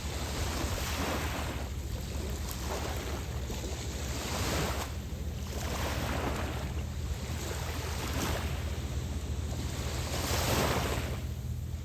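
Small waves breaking and washing up on the shore of Lake Michigan, one swell every couple of seconds, over a steady low rumble of wind on the microphone.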